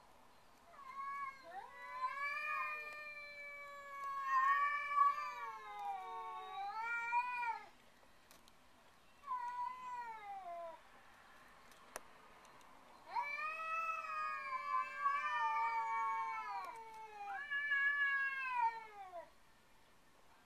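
Cats caterwauling: long, drawn-out, wavering yowls that rise and fall in pitch, in three bouts with short pauses between, the voices at times overlapping. The uploader takes it for a mating serenade.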